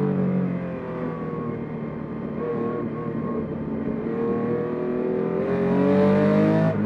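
1967 Porsche 911S race car's air-cooled flat-six heard from inside the cabin while lapping. The revs fall off at first, then climb steadily under power to the loudest point, and drop sharply near the end.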